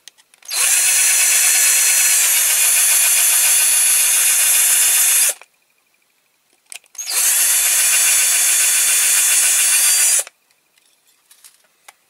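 Cordless power drill running with a large twist bit boring into the rivet on a diecast toy car's baseplate to drill it out. There are two steady runs, about five and three seconds long, with a short pause between them.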